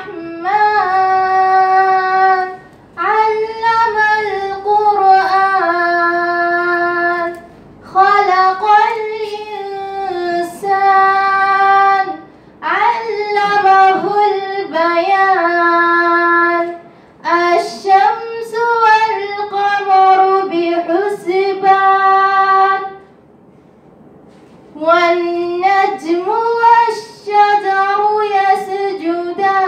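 A young woman reciting the Quran in Arabic as a melodic chant into a handheld microphone. The phrases last a few seconds each, with long held notes and ornamented turns of pitch, and short breaths between them. There is a longer pause about 23 seconds in.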